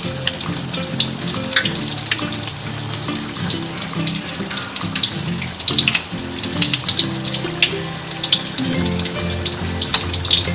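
Martabak telur parcels (spring roll wrappers filled with egg and spring onion) frying in hot oil, a steady sizzle with frequent small crackles, under background music.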